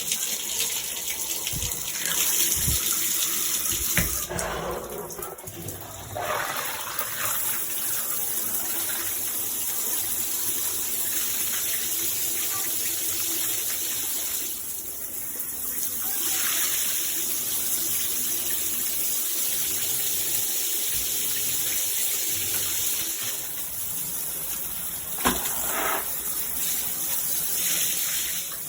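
Shower head spraying water, a steady hiss of spray. A few knocks come in the first seconds and one sharp click near the end.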